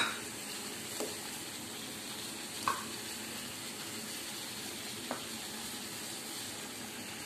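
Water with ginger and cinnamon at a rolling boil in an aluminium pot on a gas stove: a steady bubbling hiss. A sharp tap right at the start, then a few faint ticks.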